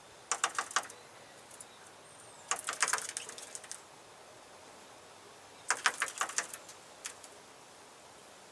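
A small bird pecking at its reflection in a Dodge pickup truck's grille: three bursts of rapid taps, a few seconds apart.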